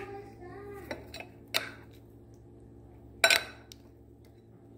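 Metal spoon clinking and scraping against a glass mixing bowl while spooning thick batter over a skewered mozzarella stick. A few separate sharp clinks, the loudest a little past three seconds in.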